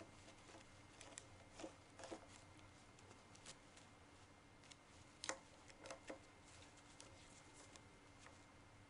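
Faint, scattered light clicks and taps of a Scotts steering damper and its hardware being handled and seated on the mount by gloved hands, over near silence. The clearest clicks come in a small cluster about five to six seconds in.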